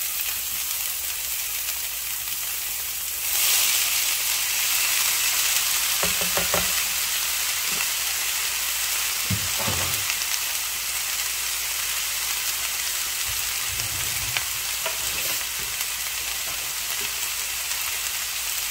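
Corn kernels sizzling in a smoking-hot pan as they char, a steady hiss that surges louder about three seconds in. A few short knocks come partway through.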